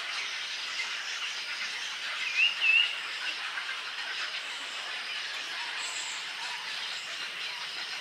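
Steady, dense chatter of many birds at a crowded egret nesting colony. Two short warbling calls stand out above it about two and a half seconds in.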